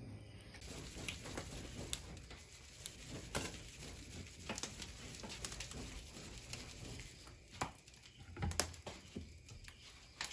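Wood and husk fire crackling in a traditional oven, with embers burning both under the oven and on its metal lid: irregular sharp pops and snaps.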